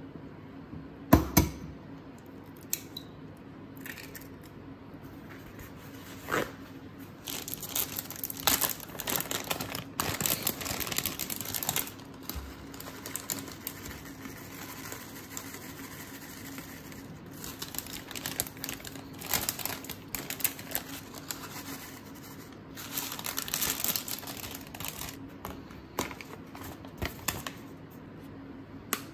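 An egg cracked sharply on the rim of a ceramic bowl about a second in, then plastic food packets rustling and crinkling in several bursts as grated Parmesan is shaken out of its bag.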